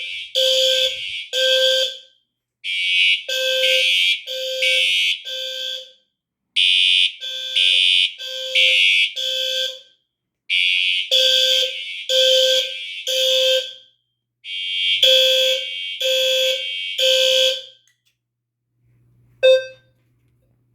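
Fire alarm horns sounding the temporal-3 evacuation pattern: three short blasts, a pause, repeated five times before cutting off. A single click follows near the end.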